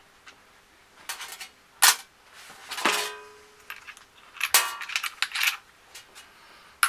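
Sharp knocks and metallic clinks of small steel screws and a plastic cordless drill being handled on a sheet-metal worktop, the screws clicking onto the magnet in the drill's base. The loudest knock comes about two seconds in, a clink with a short ring about a second later, and a cluster of clicks around five seconds.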